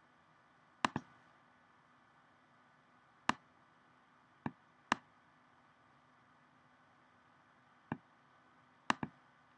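Computer mouse clicking, about six sharp, separate clicks spread over several seconds, a couple of them double clicks, against quiet room tone.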